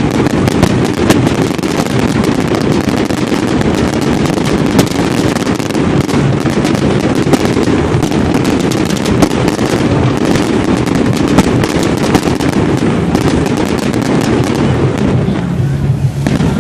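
Fireworks display: a dense, unbroken barrage of crackling and sharp bangs, which thins out near the end.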